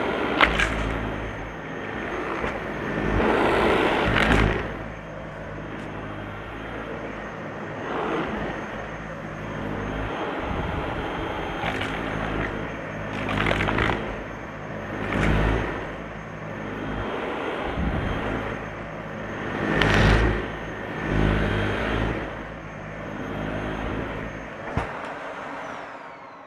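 Dyson Light Ball upright vacuum cleaner running, with a steady motor hum and several swells of louder rushing as it sucks up crunchy debris. Near the end it is switched off and the motor winds down with a falling whine.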